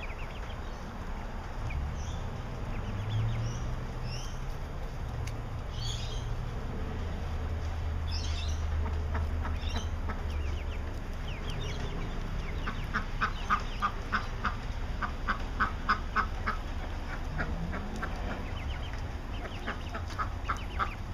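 Five-week-old chickens calling as they forage: scattered high peeps in the first half, then a fast run of short calls, several a second, for about four seconds past the middle, with a few more near the end.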